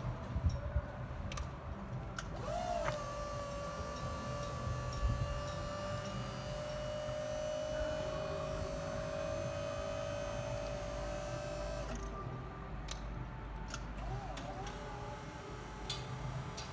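Electric hydraulic pump motor of a Skyjack SJ4632 scissor lift running with a steady whine as the platform is raised. It starts about two and a half seconds in and cuts off suddenly about twelve seconds in, as the platform reaches full height. A few clicks come before and after it.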